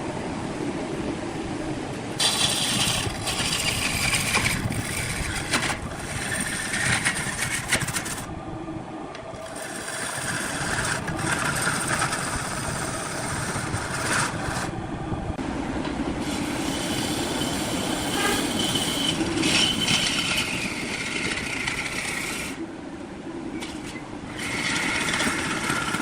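Wood lathe running with a steady rumble, while a turning tool cuts into the spinning wood in four bouts of a few seconds each, each a hissing scrape.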